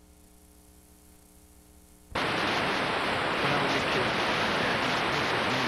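Faint steady hum from the tape playback, then about two seconds in a sudden loud, steady hiss of videotape static: the noise of blank or unrecorded tape between recordings.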